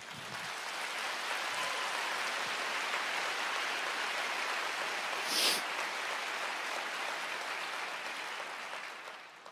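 A large congregation applauding: a dense, even clatter of clapping that swells up within the first second, holds steady, and dies away near the end. A brief, sharp, high sound stands out above the clapping about halfway through.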